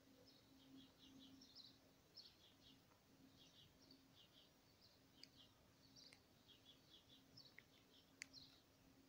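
Faint chirping of small birds: short twittering phrases repeated every half second or so over a quiet background, with a couple of small clicks near the end.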